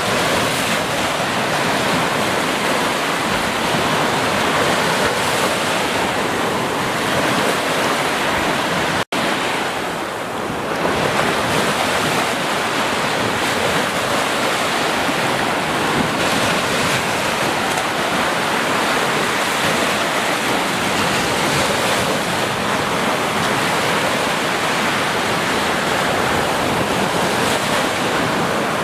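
Ocean surf: small waves breaking and washing up the beach as white foam, a steady rushing wash. The sound cuts out for a split second about nine seconds in.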